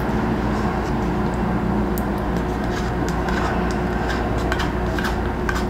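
Steady low hum with a faint held tone, like a running fan or appliance, with a few light clicks of a utensil against a plate.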